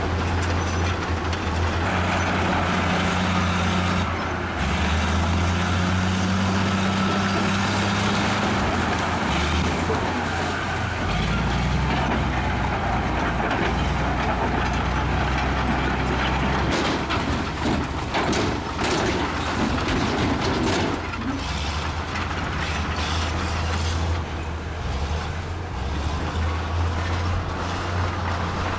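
Bulldozer's diesel engine running steadily under load, its pitch shifting as the load changes. A run of knocks and clatter comes about two-thirds of the way through.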